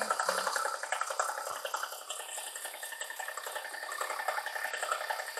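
Milling cutter on a metal planer mill roughing out a steel press brake die: a steady, dense cutting noise with a fast fine chatter, easing slightly about two seconds in.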